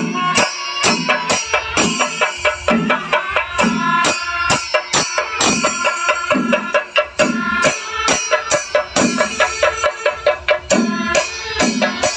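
Kerala temple percussion music: drums beaten in a fast, steady rhythm with clashing cymbals, over a repeating low beat about twice a second.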